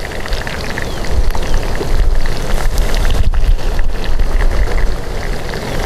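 Wind buffeting a clip-on microphone: a loud, fluctuating low rumble over a steady crackling hiss from the wood cooking fire.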